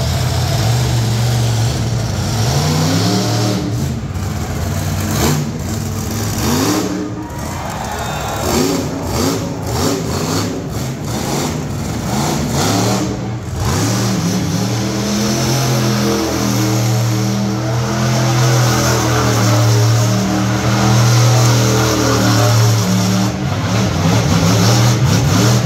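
Monster truck engine revving hard, its pitch climbing and dropping again and again, then running at a steadier, higher drone that grows louder near the end.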